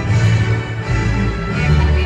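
Orchestral music from a light-and-sound show's sound system, with deep held bass notes.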